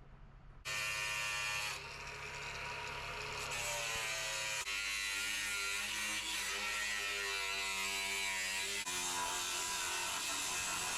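Electric power tool cutting steel stock. It starts suddenly about a second in as a loud, steady motor whine, and its pitch and tone shift several times as it works through the metal.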